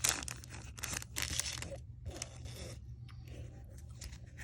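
Foil wrapper of a Pokémon trading-card booster pack crinkling and tearing as it is opened. A rapid run of crackles in the first two seconds thins out to quieter rustling.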